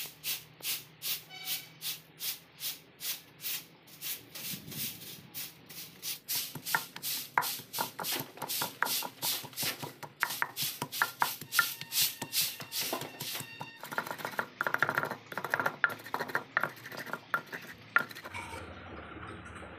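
Wooden pestle pounding ginger in a clay pot, steady knocks about three a second. Toward the end the strokes turn into quicker, irregular crushing and grinding as the ginger becomes a coarse paste.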